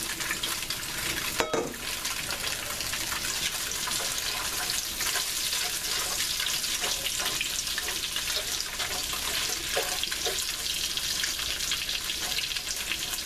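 Carrot and potato sticks sizzling and crackling steadily in plenty of hot oil in a stainless steel pan, with a metal utensil scraping and clinking against the pan as they are stirred, once about a second and a half in and again around ten seconds.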